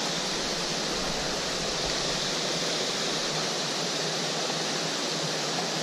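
Steady rush of water from a small waterfall spilling out of a culvert into a stream, an even hiss with no breaks.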